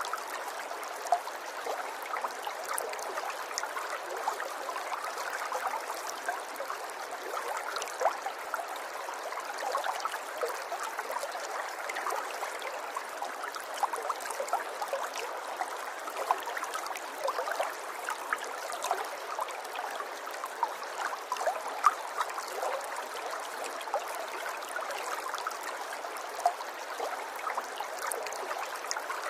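River water flowing, a steady rush of running water dotted with many small quick splashes and plinks.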